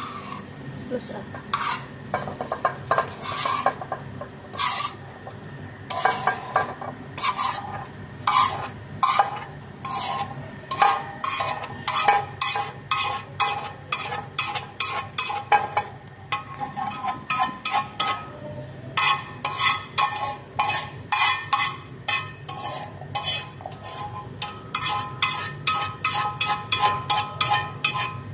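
Metal utensil repeatedly scraping and knocking against a frying pan as vegetables are scraped out of it, the pan ringing after many of the strokes. The strikes come in irregular runs, thinning out a little past the middle and coming fast again near the end.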